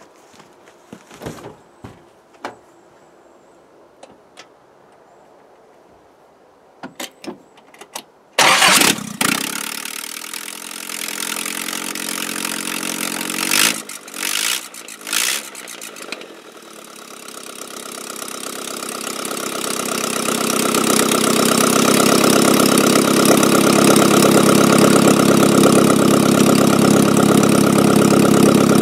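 Carburetted Nissan Z24S four-cylinder engine, with no exhaust manifold fitted, so it exhausts straight out of the open head ports. After some eight seconds of quiet with a few clicks, it starts suddenly and loudly, gives a few sharp loud bursts, then grows steadily louder into a loud, even run.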